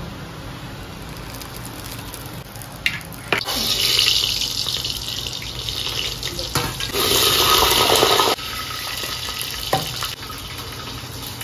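Tempering sizzling in hot oil in a pan, in two loud hissing bursts: one about three and a half seconds in that fades away, and a second about seven seconds in that cuts off suddenly.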